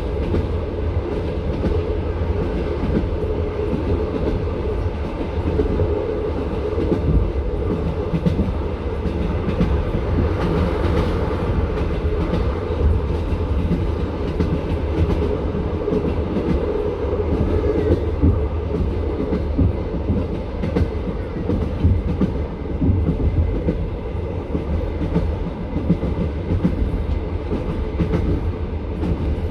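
Passenger train carriage running along the line: a steady rumble with the clickety-clack of the wheels over the rails, heard from inside the carriage.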